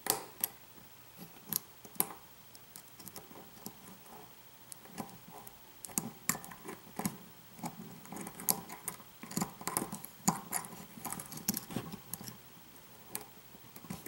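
Light metal clicks and scrapes of a hook pick working the pins inside a pin-tumbler lock cylinder under tension, irregular and quick, coming most thickly in the middle, while the lock sits in a false set.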